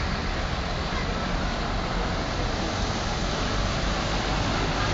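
Steady rushing noise of a flooded city street: water and road traffic, with a low rumble underneath.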